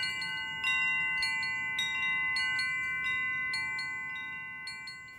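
Chimes struck one after another, about twice a second, as an opening theme. Each strike rings on, so several bell-like tones overlap, and the sound fades gradually near the end.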